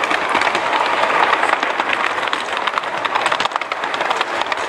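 Garden-scale model train running along its track, heard from a car riding behind the locomotive: a steady hiss of running noise with rapid, irregular wheel clicks and rattles over the rails.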